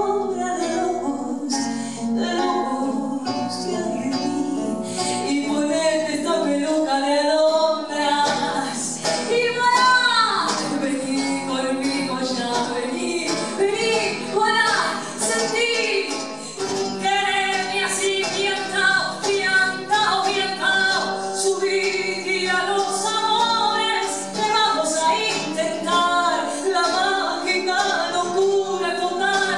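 A woman singing live with an acoustic guitar accompanying her, the voice sliding and swooping in pitch, with a long upward-then-falling glide about ten seconds in.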